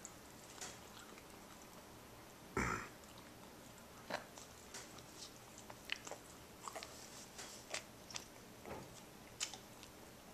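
A four-toothed baby chewing and gumming a piece of challah, with small wet mouth smacks and clicks scattered throughout. A single louder thump about two and a half seconds in.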